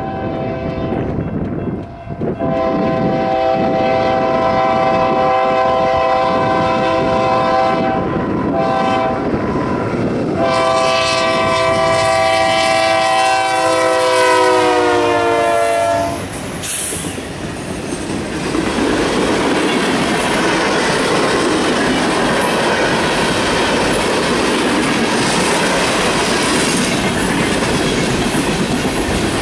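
A Union Pacific freight locomotive's multi-chime air horn sounding four blasts, long-long-short-long, the last dropping in pitch as the lead engine goes by. Then the train rushes past at speed, wheels clattering over the rail joints.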